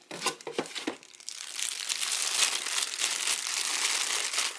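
Plastic or paper packaging being handled and unwrapped from a camera: a few short crinkles, then from about a second in a dense, steady crinkling and rustling.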